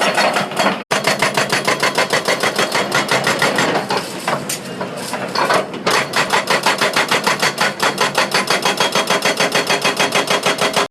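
Excavator-mounted NS140 hydraulic breaker hammering rapidly, about six blows a second in an even, loud chatter. The blows weaken around four to six seconds in, then pick up again.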